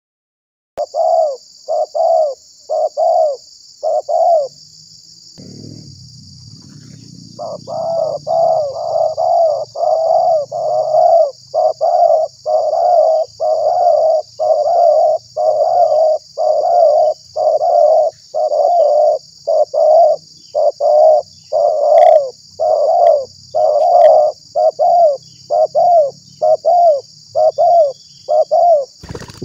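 Spotted dove cooing: a long run of short, evenly spaced coo notes, about one a second, with a pause of a few seconds near the start. A steady high buzz of insects runs underneath.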